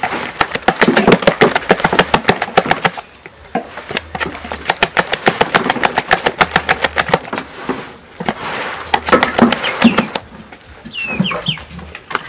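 Rapid rhythmic knocking, about eight strokes a second, in three bursts, as the last portion of millet TZ is worked and shaped in a bowl. A few short high chirps come near the end.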